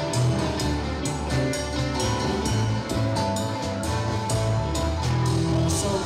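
Live blues band playing an instrumental passage: electric guitar over a bass line and drum kit keeping a steady beat.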